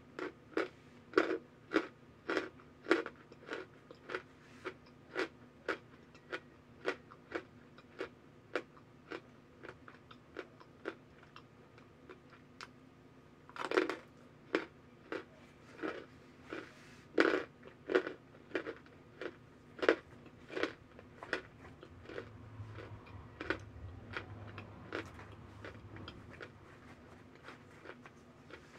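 Hard cornstarch chunks being bitten and chewed: a steady run of crisp crunches, about one or two a second, with a few louder bites around the middle.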